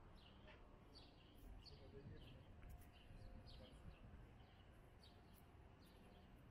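Small birds chirping faintly in short, scattered chirps over a low, steady background hum.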